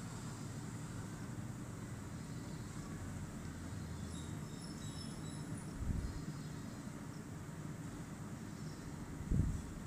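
Pot of water at a rolling boil on a gas stove, a steady low rumble, as rice is spooned into it. Two dull thumps, about six seconds in and near the end.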